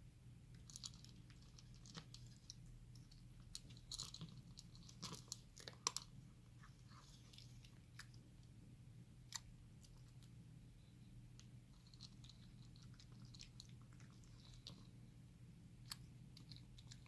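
A cat chewing and crunching its food: faint, irregular crunches and mouth clicks, busiest a few seconds in, over a low steady hum.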